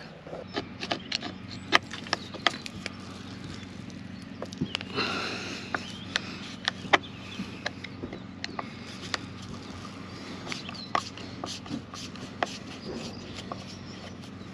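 Irregular sharp clicks and taps of hand tools working at screws in metal boat fittings, a few a second, with a brief scraping rush about five seconds in, over a steady low hum.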